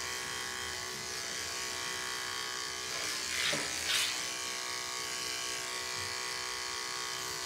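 Electric pet hair clippers running steadily as they trim a small dog's long fur, with a steady motor buzz that gets briefly louder twice a little past the middle.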